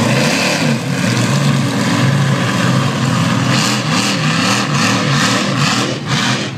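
Monster truck engine revving hard and repeatedly, its pitch swinging up and down, with rough noisy surges over it in the second half.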